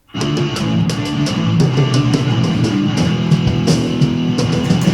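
Rock music with guitar and drum kit playing loud, starting abruptly.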